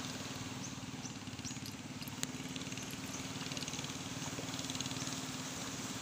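Steady drone of a boat engine running out on the sea, with one sharp click about two seconds in.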